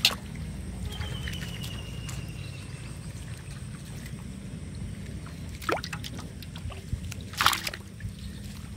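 Climbing perch dropped into shallow water in a metal bucket, splashing and flopping among the other fish, with two short sharp splashes a little past the middle and near the end, the second the louder. A steady low rumble runs underneath.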